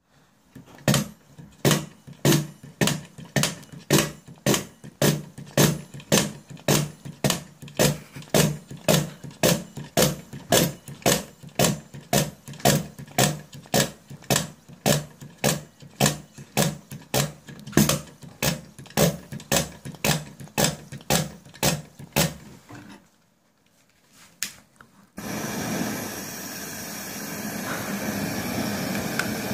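Hand pump of a brass Daerim 105 kerosene pressure stove being worked in even strokes, about two a second for some twenty seconds, pressurising the fuel tank. After a short pause the burner lights all at once and burns with a loud, steady rushing noise.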